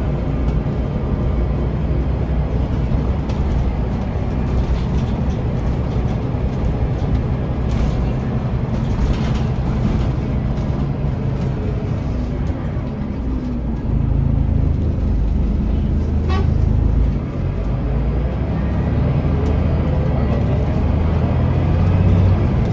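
Scania L94UB bus's DC9 five-cylinder diesel engine running steadily as the bus drives, with road noise, heard from on board. The engine gets louder about two-thirds of the way through, dips briefly, then rises in pitch near the end.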